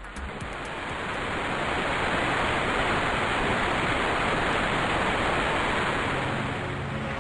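A steady rushing hiss of noise that swells up over the first two seconds and then holds. Low musical tones begin under it near the end.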